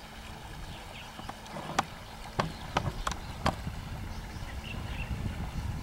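Five sharp knocks in quick succession, roughly half a second apart, over a steady low rumble.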